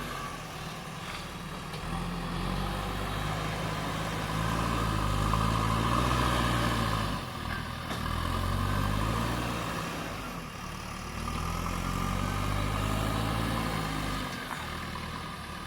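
JCB 3DX backhoe loader's diesel engine running and revving up and dropping back several times as the machine works its hydraulics, loading soil.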